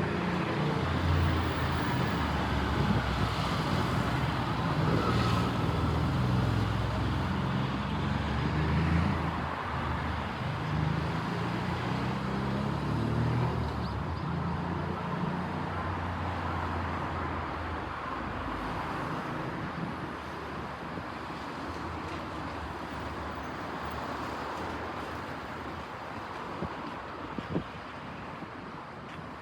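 Road traffic at a street. The engine of a large road vehicle hums loudly through the first half and then fades away, leaving a steady traffic hiss, with a small knock near the end.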